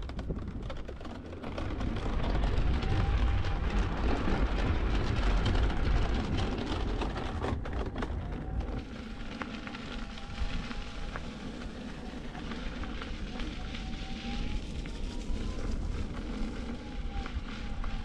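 Wind rushing over the action-camera microphone and tyre noise from an InMotion V12 electric unicycle riding along a trail, with a faint hub-motor whine that rises and falls with speed. The rush is loudest in the first half, with a couple of knocks about eight seconds in.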